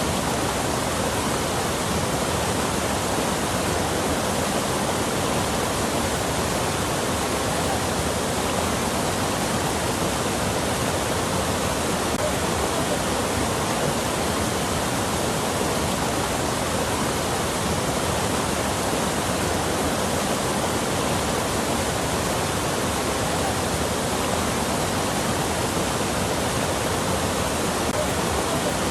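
Rushing water, a steady even roar with no changes, like a waterfall or fast stream.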